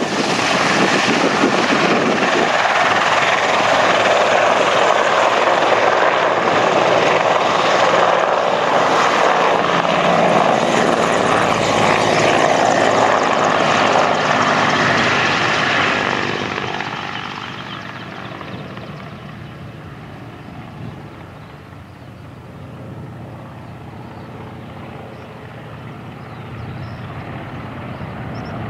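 Mil Mi-24 helicopter's twin turboshaft engines and five-blade main rotor, loud and close for about sixteen seconds, then fading as the helicopter moves away, leaving a lower, duller rotor sound.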